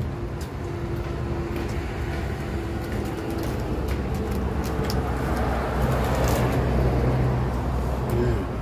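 Steady low rumble of heavy road traffic that swells in the second half and falls away shortly before the end, with scattered crisp crunches of raw leafy greens being bitten and chewed close to the microphone.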